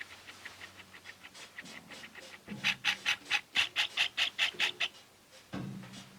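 Trigger spray bottle of fireplace-glass cleaner being pumped quickly, a run of short squirts about five a second. The squirts are faint at first and louder for the last two seconds or so of the run.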